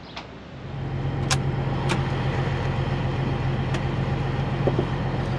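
Peterbilt 362 cabover's Caterpillar diesel engine idling steadily, heard from inside the cab. It comes in about half a second in, and a few sharp clicks and knocks sound over it.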